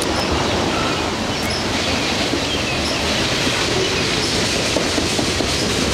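Freight train of tank cars rolling under the bridge: a steady, continuous rumble of wheels on the rails.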